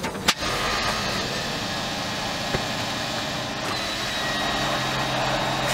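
Toyota hatchback's engine idling steadily after its oil and filter change, with one sharp click near the start.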